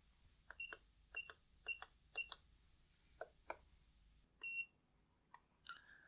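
Keys on a DK50 wireless gate keypad being pressed four times in quick succession, each press a soft click with a short high beep, as the 5678 code is entered. Two more clicks follow, then a longer beep. A lower-pitched tone starts near the end.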